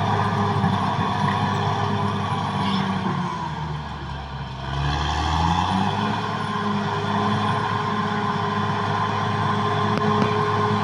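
Caterpillar D6R XL bulldozer's diesel engine running at work. Its note drops and quietens a few seconds in, then rises back to its working pitch about two seconds later.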